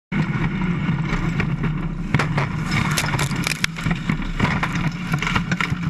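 BajaLite off-road race truck on the move, its engine running steadily under a stream of sharp knocks and rattles, starting abruptly.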